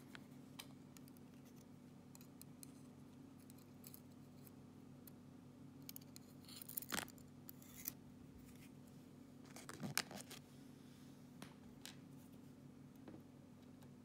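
Near silence over a steady low hum, broken by a few faint small metallic clicks and rustles, mostly around the middle. This is a Trioving 5652 padlock being handled as its top pins and springs are let out onto clear tape.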